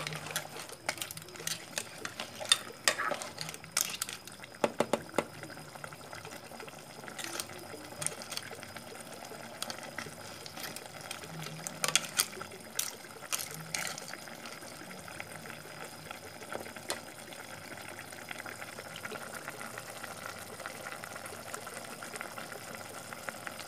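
A spatula stirring a pot of simmering soup with clams, shrimp and bottle gourd: clinks and scrapes of the utensil and shells against the pot over a steady bubbling hiss. The clinks thin out in the second half, leaving mostly the simmering.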